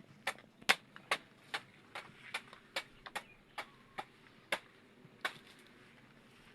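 Rapid, regular chopping strikes of a blade cutting into a banana tree trunk, about two or three a second, stopping about five seconds in.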